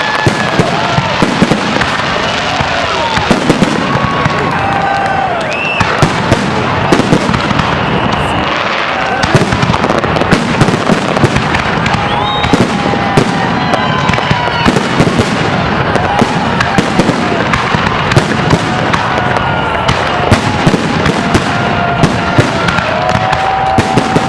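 Fireworks salute: shells bursting in a rapid, continuous string of loud bangs and crackles, with people's voices among them.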